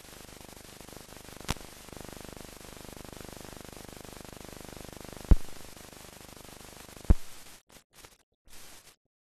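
Steady hiss and static of a silent film's blank soundtrack, broken by three sharp clicks. Near the end the hiss breaks up into short bursts and drops out to silence.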